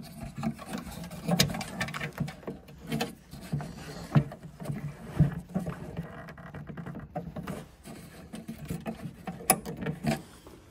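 Irregular plastic clicks, knocks and scraping as a hand works at a twist-lock bulb holder in the back of a Volvo XC70 headlight unit, trying to turn it out.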